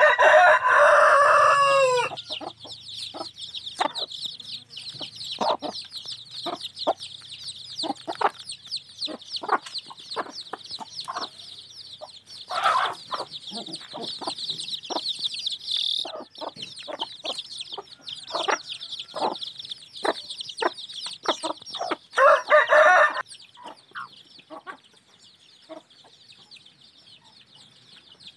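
Native chickens: chicks peep constantly in a high chorus while a hen clucks in short calls. A rooster crows at the start, and a second loud call comes about three-quarters of the way through.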